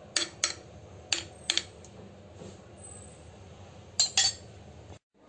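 A spoon clinking against a ceramic plate of sardines in tomato sauce: seven sharp taps in three groups, two near the start, three around a second in and two at about four seconds.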